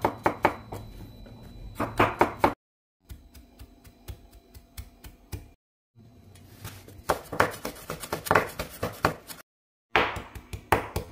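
Kitchen knife chopping rapidly on a wooden cutting board, mincing garlic and red chili: quick strikes in several bursts broken by short dead-silent cuts, with fainter, sparser taps in the middle.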